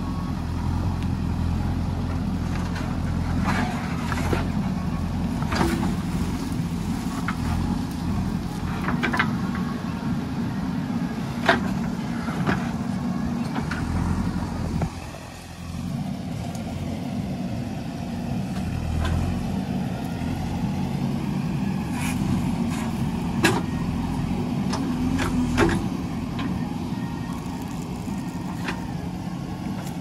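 JCB 3DX backhoe loader's diesel engine running steadily as the backhoe digs and scrapes soil, with scattered sharp clanks and knocks from the bucket and arm.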